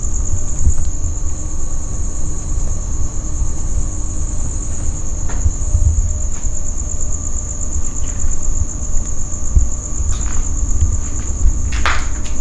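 A continuous high, fast-pulsing trill of night insects such as crickets, over a steady low rumble on the microphone, with a brief scrape near the end.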